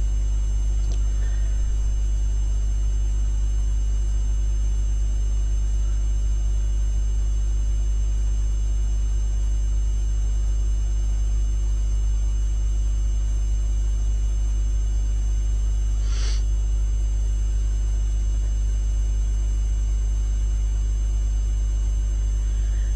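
Steady low hum, with one short faint rustle or sniff-like noise about sixteen seconds in.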